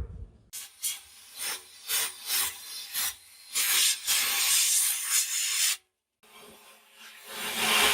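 Rasping hand strokes of an abrasive being rubbed over rusty metal: about eight separate scraping strokes, then a couple of seconds of continuous rubbing. After a brief break, a steady rasping noise builds near the end.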